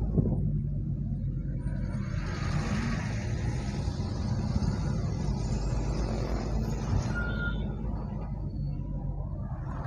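Road noise heard from inside a moving car: a steady low rumble of engine and tyres. From about two to seven seconds in, a hiss of passing traffic rises over it and then fades.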